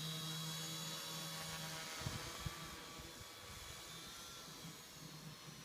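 APM 2.6 ArduPilot quadcopter's electric motors and propellers whining steadily in flight as it comes down under auto-land, several steady tones over a hiss. A couple of short low thumps come about two seconds in.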